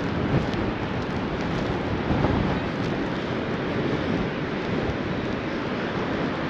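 Strong gusting wind buffeting the GoPro's microphone, a dense steady rush with louder gusts about half a second and two seconds in.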